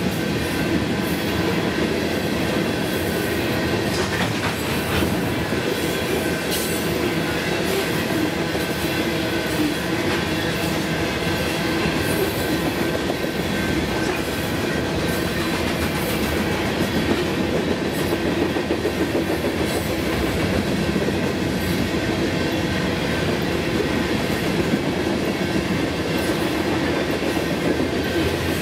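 Loaded grain hopper cars of a Union Pacific freight train rolling past in a steady rumble, with wheel clicks over the rail and a thin steady high squeal from the wheels.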